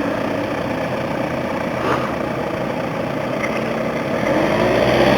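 Off-road vehicle engine running steadily at low revs, with a brief knock about two seconds in; the revs pick up near the end.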